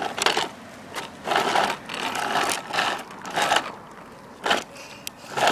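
Hard plastic wheels of a Strawberry Shortcake toddler tricycle rolling and scraping over a concrete sidewalk in short, uneven spurts as it is pushed along, about seven grinding bursts.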